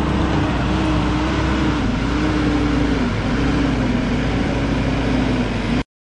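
Case TV450 compact track loader's diesel engine working hard as it pushes dirt, its pitch sagging briefly a couple of times under load and recovering. The sound cuts off abruptly near the end.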